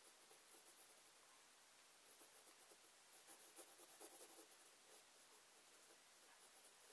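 Faint scratching of a pencil lead on drawing paper as short sketching strokes are drawn, a little more audible about halfway through.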